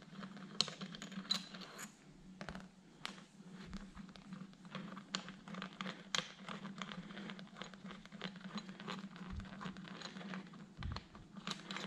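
Small metal clicks and scrapes as the bolts are worked loose and the cap is taken off a piston and connecting rod assembly. The clicks come irregularly throughout, over a steady low hum.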